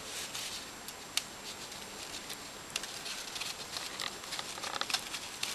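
Faint rustling and scattered light ticks of thin paper being handled, as slotted paper pieces are threaded over and under one another.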